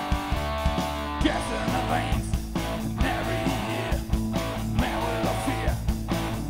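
Rock band playing live: electric guitars over bass and drums, with a steady beat.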